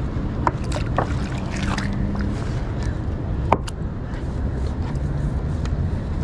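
Gill net being hauled and worked by hand from a kayak: a steady low rumble of water and air, with a few small sharp clicks and taps from the net and boat. The loudest click comes about three and a half seconds in.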